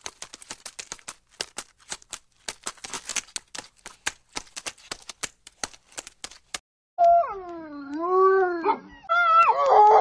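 Quick, irregular clicking paw steps of a running dog. About seven seconds in, the dog howls twice: two drawn-out, wavering calls, the first sliding down and back up.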